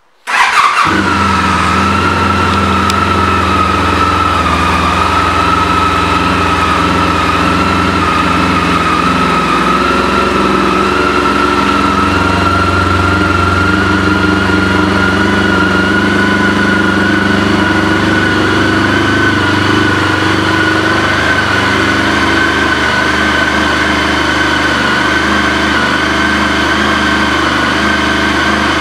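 Honda ST1300's liquid-cooled V4 engine, fitted with an aftermarket exhaust, starts about half a second in and then idles steadily. A high, steady whine rides above the idle.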